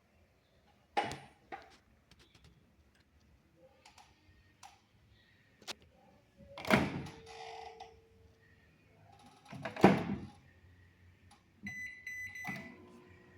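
Microwave oven being handled: a series of hard thunks spaced a few seconds apart, the two loudest in the middle, as of its door being shut. Near the end comes a steady high beep lasting about a second.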